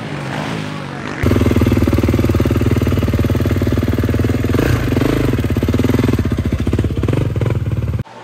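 Motocross bike's single-cylinder four-stroke engine running steadily close by, with a fast even beat; it comes in suddenly about a second in and cuts off suddenly near the end.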